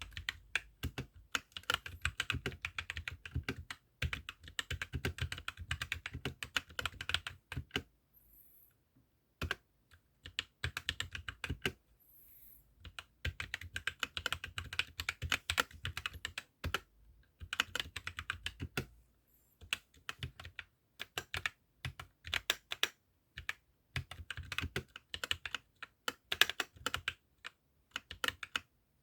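Fast typing on a 68-key mini mechanical keyboard with tactile MMD Holy Panda 55 g switches: dense runs of keystroke clicks, broken by a few short pauses.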